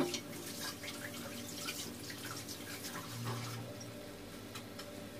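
Dates cooking in olive oil in a pan, the oil sizzling with scattered small pops and crackles that thin out after about two seconds.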